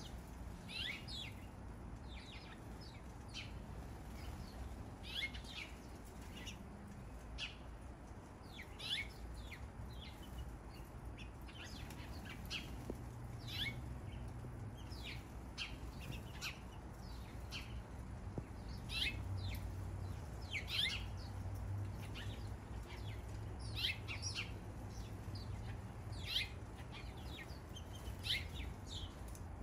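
Backyard birds chirping: many short, high calls, each falling in pitch, scattered all through, several birds at once, over a faint low hum.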